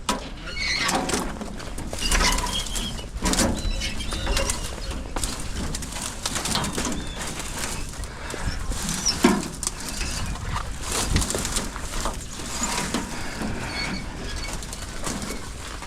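Brush and branches rustling and crackling as they are pulled and handled, in irregular short bursts of noise with no steady machine tone.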